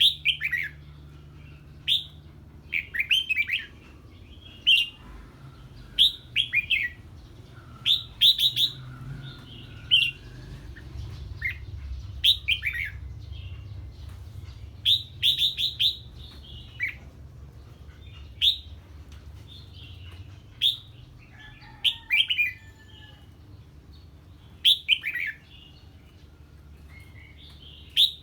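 Red-whiskered bulbul singing short, bright phrases that sweep downward, one every second or two. This is the excited 'ché' song a bulbul gives in reaction to a strange bird.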